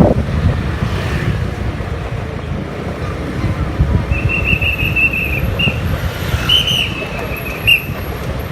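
Low, steady rumble of a vehicle on the move, with a high, wavering whistle-like tone coming in about halfway through and stopping near the end.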